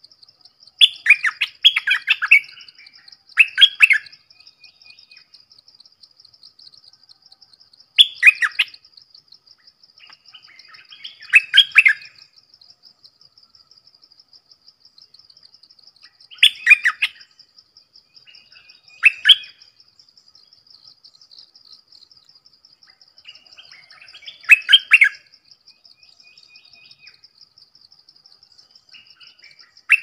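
Bulbul (Thai นกดอกแตง, Malay merbah lekir) singing short, quick burbling phrases, about eight of them spaced a few seconds apart. A steady, fast-pulsing high insect trill runs underneath.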